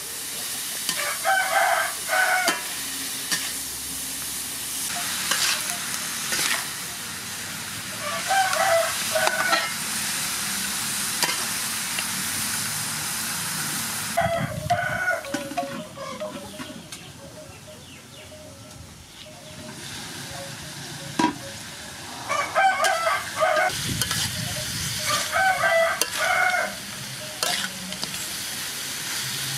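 Chicken pieces and ginger sizzling in an aluminium wok while a metal spatula stirs and scrapes them around the pan, with short squealing tonal sounds coming and going several times.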